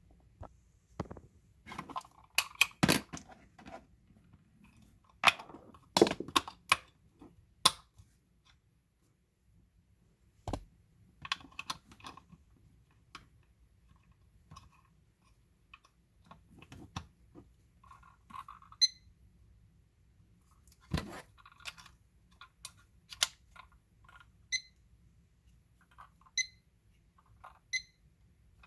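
An IKEA KLOCKIS clock and its packaging being handled: irregular sharp clicks, knocks and rustles, busiest in the first several seconds. In the last ten seconds the unit gives four short, high electronic beeps.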